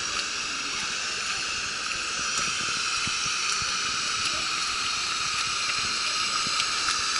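Steady high hiss of street ambience, with faint soft footsteps on wet, slushy pavement.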